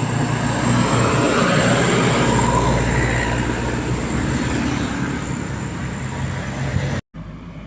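A bus driving past: a steady engine drone with road noise that slowly fades, then an abrupt cut to quieter traffic sound near the end.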